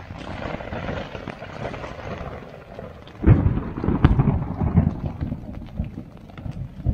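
Rain falling steadily on a lightweight tent's fly, heard from inside the tent. About three seconds in, a sudden clap of thunder starts with a sharp crack and rumbles low for a couple of seconds.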